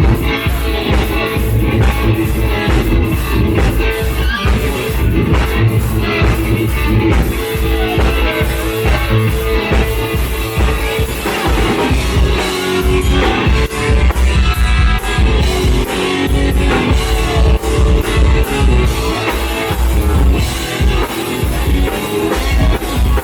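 Live rock jam: electric guitar playing over a drum kit with a steady beat, loud and continuous.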